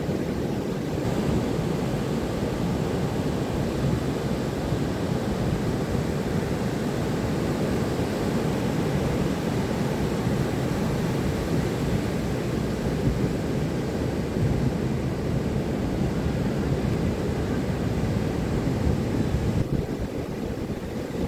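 Ocean surf breaking on the beach, a steady low rumble, with wind buffeting the microphone.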